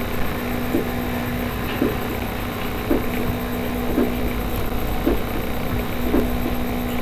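Steady low hum and rumble of background noise, with a soft short pulse repeating about once a second.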